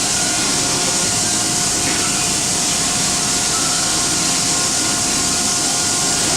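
Steady, loud hiss of air from spray painting automotive base coat, with a constant hum running underneath.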